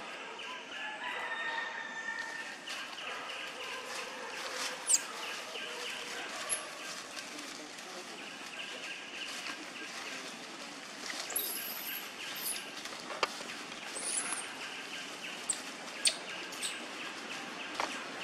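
Outdoor ambience with birds calling: a steady background with several short, sharp high chirps scattered through it.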